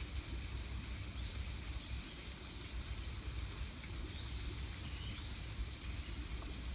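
Steady outdoor ambience: a low rumble and an even high hiss, with a few faint bird chirps.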